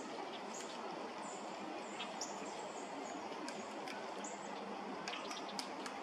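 Thin, very high bird calls: short, slightly falling notes repeating every half second or so over a steady background hiss of the woods, with a few sharp taps in the second half.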